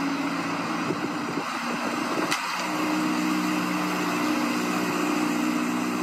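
Chevrolet C8 Corvette's V8 engine idling steadily, with one sharp click a little over two seconds in, after which the idle note shifts slightly and holds.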